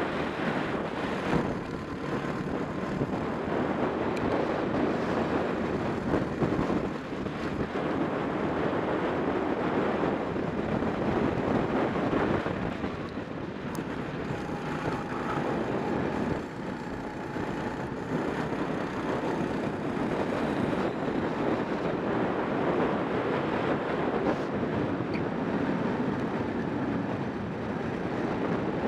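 Racing go-kart at speed, heard from its onboard camera: the kart's engine running under load, largely buried in heavy wind noise on the microphone.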